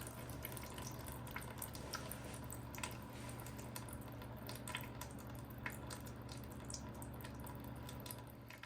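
The last of the engine oil dripping from an oil pan's drain hole into a bucket. The drips are irregular and faint, over a steady low hum.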